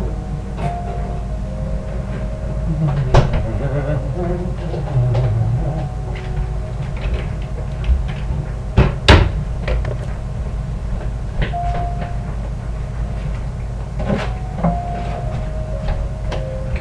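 Kitchen work noises: a few sharp knocks and clacks of cupboards and utensils, the loudest about three seconds in and about nine seconds in, over a steady low hum and faint piano music.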